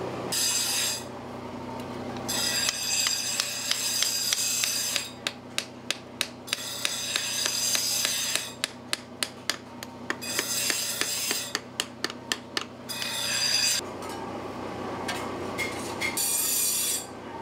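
Sharp metal taps, two to three a second, as homi are knocked against a steel plate to drive their wooden handles onto the heated tangs. The taps alternate with bursts of harsh, rasping hiss.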